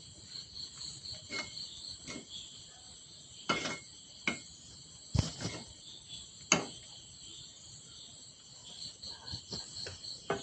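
Crickets chirping steadily in the background, with several sharp clicks and knocks scattered through, the loudest two a little past the middle.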